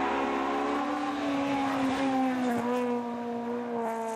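Honda S2000's four-cylinder engine revving high as the car passes by, with a steady note that rises a little in the first second and drops about two and a half seconds in.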